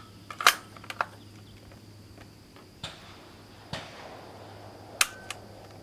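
Bolt of an Italian Vetterli 1870/87/15 rifle in 6.5 mm Carcano being worked by hand after a misfire: a series of sharp metallic clicks and clacks, with no shot fired. Near the end comes another click of the firing pin falling without the round going off, a second misfire that the shooter puts down to a firing pin issue.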